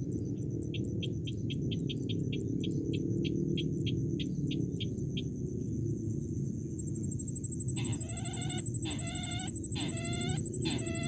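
Bird calls of the kind used to lure sintar birds to a snare: a run of quick, short ticking notes, then from about eight seconds a loud, repeated clucking call, roughly one and a half a second. A steady low rumble and a thin high whine sit underneath.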